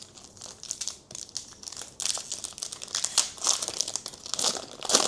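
Plastic trading-card pack wrapper crinkling as it is torn open and handled, in an irregular run of rustles that gets louder about two seconds in.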